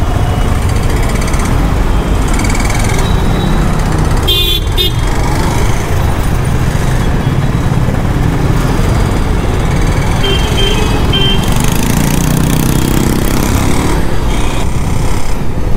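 Motorcycle engine running as it is ridden through traffic, making an abnormal sound that an engine-oil change has not cured; the rider fears an engine problem. Horns toot briefly about four seconds in and again around ten seconds.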